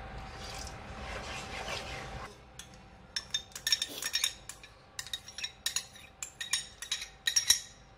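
A spoon and a plastic bowl knocking and clinking against a cooking pot as yogurt is added bit by bit to frying masala: a soft steady hiss for about two seconds, then a string of short, sharp irregular clicks.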